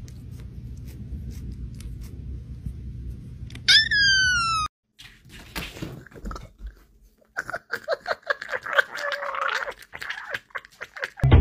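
A kitten meows once, loud and falling in pitch, over a low steady rumble. Then, after a short silence, a cat makes a rapid run of short, stuttering vocal sounds.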